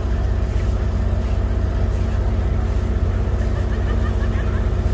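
Steady engine drone, an engine running at a constant idle with an unchanging low hum.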